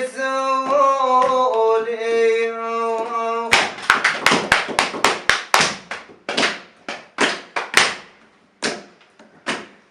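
A voice singing an ornamented, held phrase over a steady low tone. It breaks off about three and a half seconds in for a run of about fifteen sharp percussive hits, close together at first, then sparser with gaps near the end.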